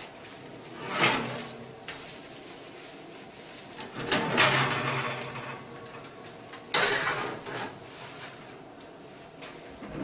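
Oven rack scraping out on its rails and a foil-covered roasting pan being handled and set down, in a few separate bursts of metal scraping, ending with a sharp clunk about seven seconds in.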